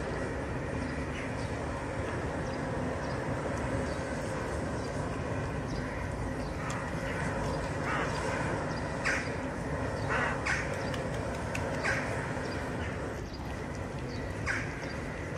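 Several short, harsh animal calls, scattered from about halfway through to near the end, over a steady outdoor background hum.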